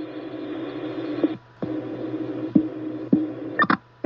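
Fire-dispatch scanner radio with the channel open between transmissions: a steady hum and hiss with faint clicks. It cuts out briefly about a second and a half in, and again near the end just after a short crackle.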